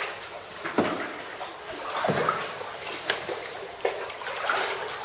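Canoe paddles dipping and splashing in shallow canal water, a splash about every second, with water sloshing against the hull, echoing under a low concrete bridge.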